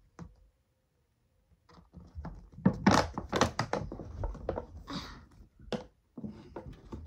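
Doll packaging being handled and pried at while someone tries to open it: after a quiet second, a dense run of thunks and clatter, with a short scraping rustle about five seconds in.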